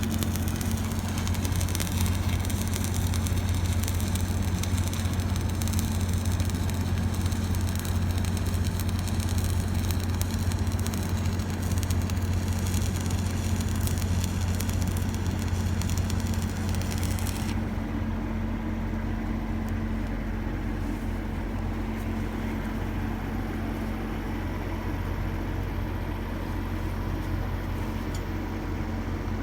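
Arc welding on irrigation mainline pipe: a steady crackle and sizzle that stops abruptly a little past the halfway point. Under it an engine runs steadily and keeps running after the arc is broken.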